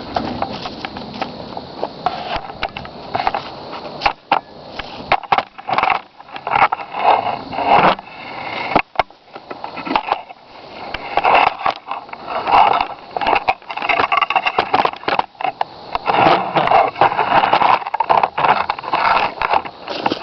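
Wooden door scraping and knocking as it is handled and stood up: rough scraping broken by many short knocks.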